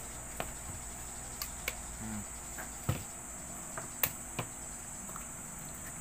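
Scattered sharp plastic clicks and knocks, about six of them, as a hair dryer's plastic casing is handled and fitted back together, over a steady high hiss.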